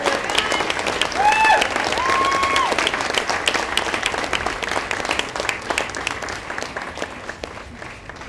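Audience applauding, with two short shouted cheers in the first few seconds. The clapping tapers off near the end.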